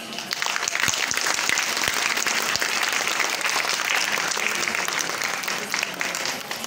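Audience applause: dense hand-clapping that starts just after the beginning, holds steady and thins out near the end.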